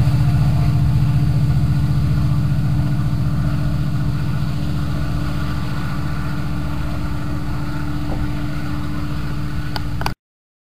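Diesel locomotive engine drone, steady and low, fading slowly as the locomotive moves away; the sound cuts off suddenly near the end.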